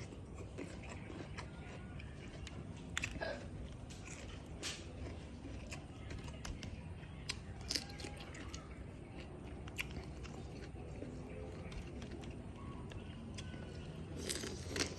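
Faint sounds of a person eating and chewing, with a few short sharp clicks now and then, over a steady low hum.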